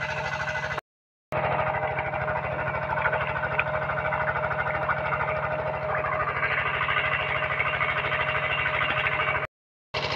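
Engine of a pond-draining water pump running steadily with a rapid, even knocking beat and a steady whine. The sound cuts out briefly about a second in and again near the end.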